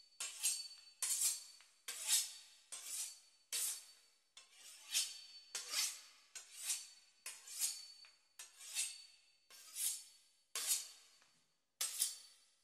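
Knife sawing back and forth through a crisp pastry crust and into a roast, a rasping scrape on each stroke, about once every three-quarters of a second in a steady rhythm.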